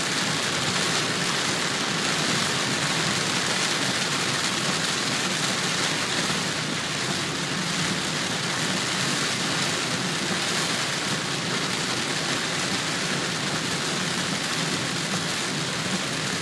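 Heavy rain falling on a car's windshield and roof, heard from inside the moving car as a steady, even hiss.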